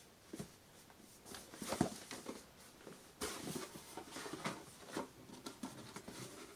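Cardboard subscription box being opened and its packaging and contents handled: irregular rustling with light knocks.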